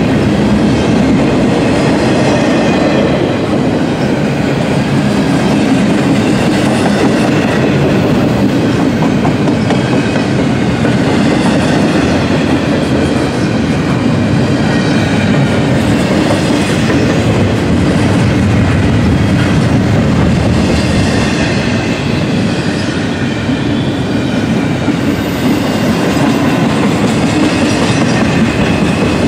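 Double-stack intermodal freight train's container well cars rolling past at speed: a loud, steady rumble of steel wheels on the rails.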